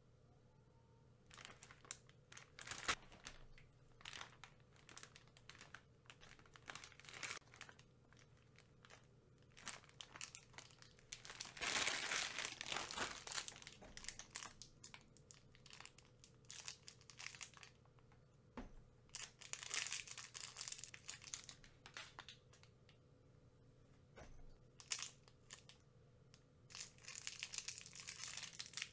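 Plastic candy wrappers crinkling and tearing as they are handled and unwrapped close up, in irregular bursts, the densest about twelve seconds in.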